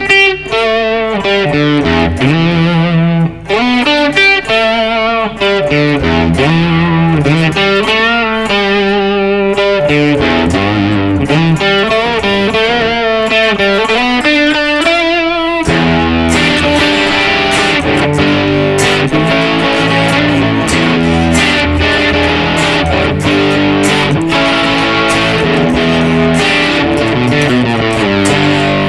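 Ibanez RC720 Premium electric guitar, fitted with two Core-Tone humbuckers, played amplified. Over the first half it plays single-note lines, some notes bent or with vibrato. From about halfway it switches to fuller, steady chord playing.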